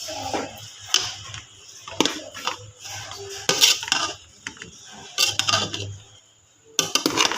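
Metal kitchen utensils clinking and knocking against a cooking pot, with irregular sharp strikes and a few short scraping stretches, as when cooking is being stirred.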